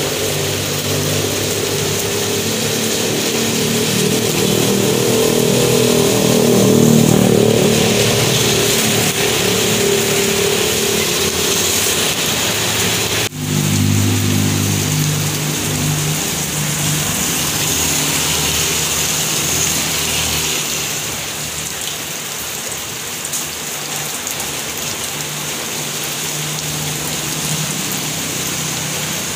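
Steady rain falling on a wet street, with motor vehicles driving past whose engines swell and fade in the first half. An abrupt break comes about thirteen seconds in; another engine is heard for a few seconds after it, then only the rain goes on.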